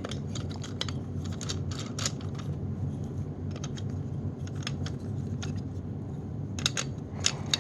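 Scattered light plastic clicks and taps as the Hoover SteamVac Widepath's rotating scrub brushes are fitted back into their housing by hand, with a few quick clicks close together near the end. A steady low hum runs underneath.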